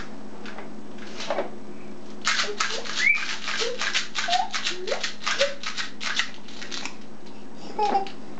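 A baby repeatedly banging a small object on the plastic tray of a high chair: a rapid run of sharp taps, about four or five a second, starting about two seconds in and lasting some four and a half seconds, with short baby vocal sounds between them and a few more taps near the end.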